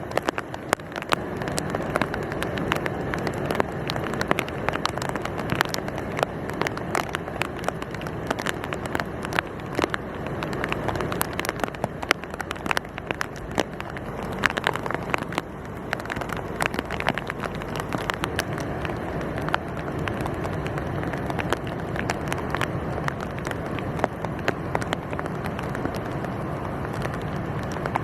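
Rain falling: a steady rush with a dense, irregular crackling patter of drops.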